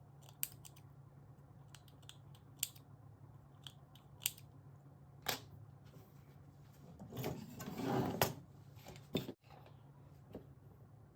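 Sewing scissors opening and closing: a series of separate sharp snips of the blades, then a louder, longer cutting stroke of about a second, some seven to eight seconds in.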